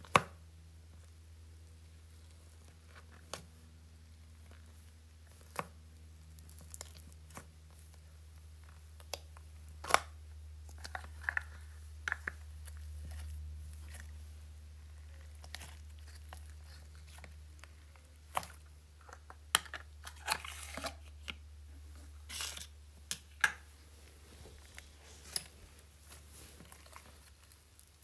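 Hands poking, squeezing and stretching slime, giving scattered sticky clicks and small pops, with crackly runs about a third of the way in and again about two-thirds through, over a low steady hum.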